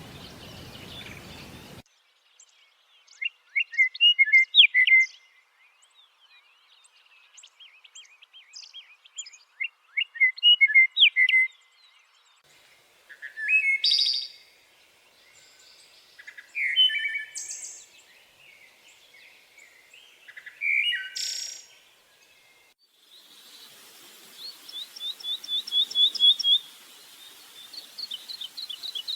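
Small songbirds singing in short phrases of chirps and whistles a few seconds apart; near the end a fast, repeated trill over a faint steady hiss.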